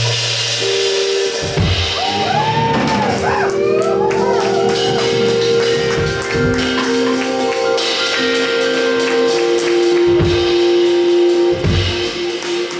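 Live band playing an instrumental passage: drum kit hits under long held keyboard-like chords, with a sliding, wavering lead line about two to five seconds in.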